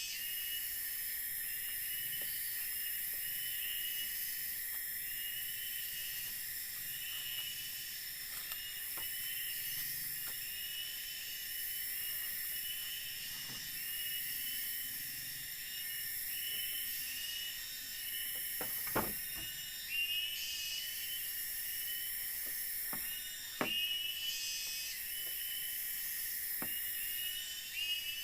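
Night-time forest insect chorus: a steady high shrill hiss, with a short chirping call repeated about once a second and a few faint clicks.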